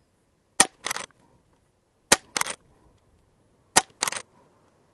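Three shots from an Umarex Zelos .22 regulated PCP air rifle, about a second and a half apart, each a sharp crack followed a moment later by a second, duller burst of sound.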